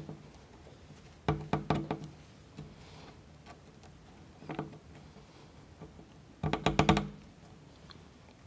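Small plywood model-kit parts clicking and knocking together as they are pressed into place by hand, with small washers being fixed onto a toothpick axle. The clicks come in two short clusters, one about a second in and another near the end, with a single tap in between.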